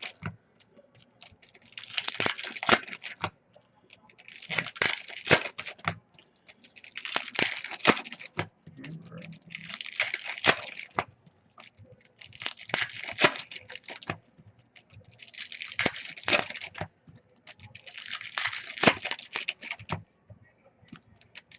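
Football trading-card packs and cards being handled: seven rustling, crinkling swishes about every two and a half seconds, with small clicks in between.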